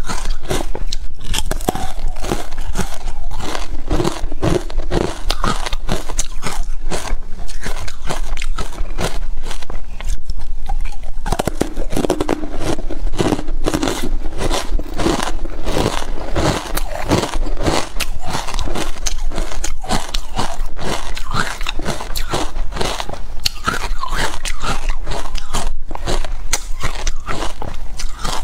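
Ice pieces coated in matcha powder being bitten and chewed close to a clip-on microphone: a dense run of sharp crunches and cracks.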